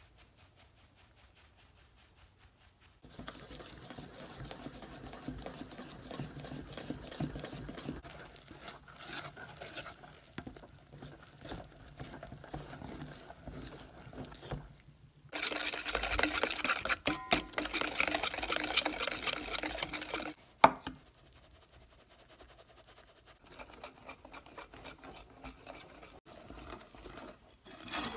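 A fine-mesh sieve of flour is tapped lightly and rapidly over a stainless steel bowl. Then batter is stirred and scraped around the steel bowl, much louder and faster for about five seconds midway.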